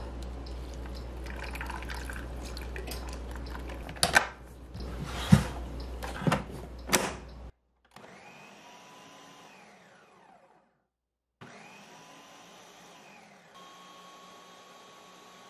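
Liquid poured into a blender jar, then several sharp knocks as the jar is set and locked onto its base, followed by a SharkNinja Nutri Ninja blender motor running, blending a smoothie, in two stretches with a short break between them and a step up in pitch near the end.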